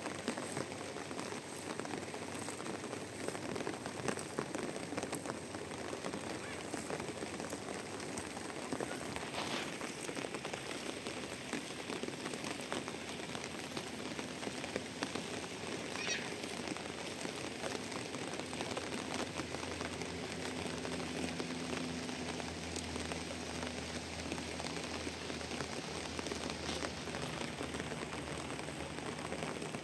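Steady rain falling and pattering on surfaces, with a brief high call about halfway through.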